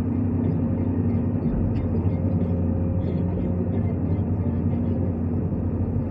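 New Holland Kobelco 215 excavator's diesel engine running steadily, holding one pitch.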